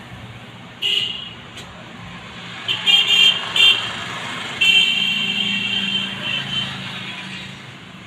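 Street traffic: a vehicle horn honks in short toots about a second in and three times around the three-second mark, then gives one longer blast of about two seconds, over the steady drone of a running engine.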